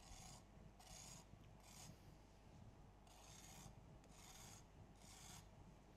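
Microplane zester rasping against the rim of a baked chocolate tart shell, about six faint short strokes, filing the crust edges smooth.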